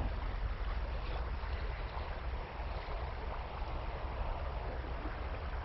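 Steady rush of flowing river water, with a low wind rumble on the microphone.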